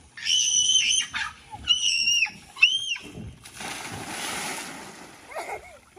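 A rider drops off the end of a water slide into a spring pool, splashing into the water for about a second, starting some three and a half seconds in. Before the splash come three high-pitched cries, the first the longest.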